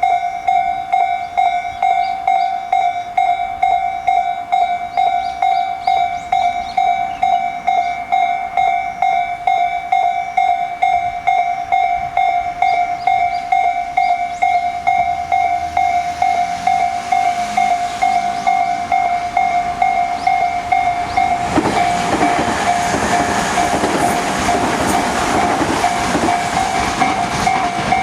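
Japanese railway level-crossing warning bell in the Tobu Tojo Line-type tone, a steady quick ding-ding-ding. From about halfway a train is heard approaching, and for the last quarter a Tobu N100 series Spacia X runs through the crossing with wheel clatter while the bell keeps ringing.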